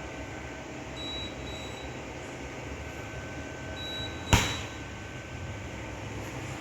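Faint high double beeps repeating every few seconds, typical of the fridge's door-open alarm, then a single sharp thump a little over four seconds in as the freezer door of a Siemens bottom-freezer refrigerator is shut, after which the beeping stops. A steady low hum underneath.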